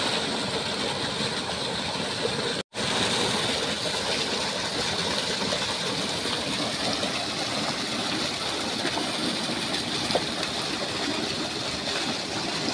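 Water pouring out of a pump's discharge pipe into a fish pond: a steady, dense rush of water, with a short break about three seconds in.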